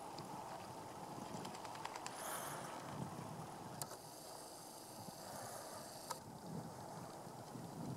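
Faint camcorder zoom motor: a click, about two seconds of thin high whirring as the lens zooms, then another click, over a low steady background rumble.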